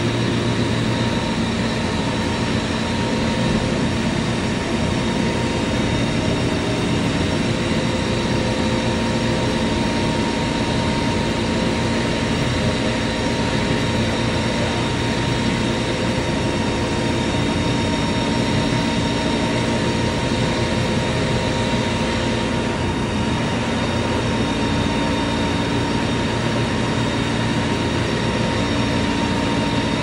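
Ship's deck crane machinery running steadily while hoisting a heavy load: a constant mechanical drone with a steady whine over it.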